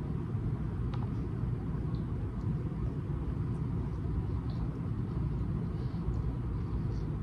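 A steady low rumble, with faint, short wet clicks of someone chewing a mouthful of sushi roll with closed lips.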